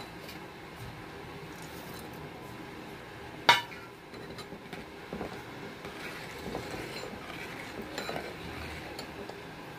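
A metal ladle stirs a pot of simmering milk and vermicelli (sheer khorma), knocking and scraping against the metal pot. A single sharp clink about three and a half seconds in is the loudest sound, and smaller clinks follow.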